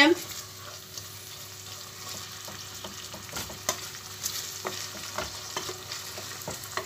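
Chopped onion, green pepper and minced meat frying in a stainless steel pot, stirred with a wooden spoon: a steady sizzle with irregular scrapes and taps of the spoon against the pot. The onions are being sautéed until soft.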